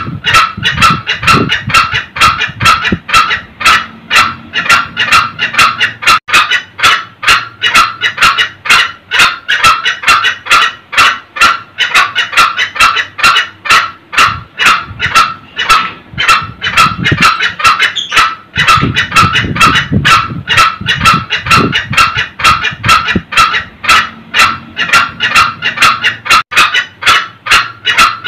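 Green junglefowl cackling: a fast, unbroken run of short, sharp, evenly spaced notes, several a second.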